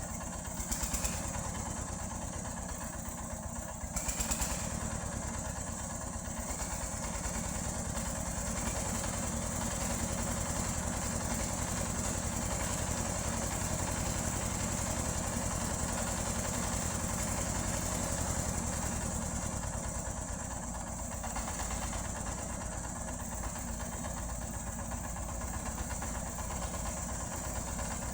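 Sawmill engine running steadily, an even low hum with a constant high whine over it. A few short knocks sound near the start and again about four seconds in.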